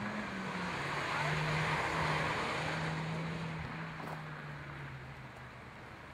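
Opel Corsa race car's engine running hard as the car passes and then pulls away. The sound swells to its loudest about two seconds in and then fades, and the engine note drops out briefly a couple of times.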